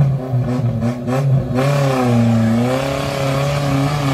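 Maruti Suzuki Gypsy's engine working hard under load as it climbs a rocky slope, its pitch dipping and rising as the throttle is worked. From about a second and a half in, a rushing, scrabbling noise joins it as the tyres spin on loose rock.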